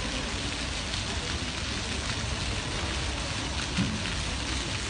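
Small fountain jets spraying up and splashing back into a shallow reflecting pool, a steady hiss of falling water.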